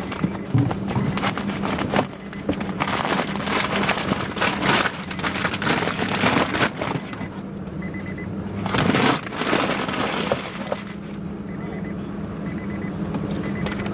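Dense crackling and rustling handling noise inside a car while it is searched, over the steady hum of the car's idling engine. A faint beeping tone repeats a few times.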